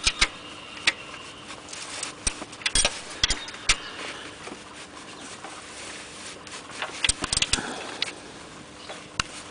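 Irregular metallic clicks and knocks of a spanner working on the alternator mounting bolts, done up without much force. The clicks come in small clusters about two to four seconds in and again around seven seconds.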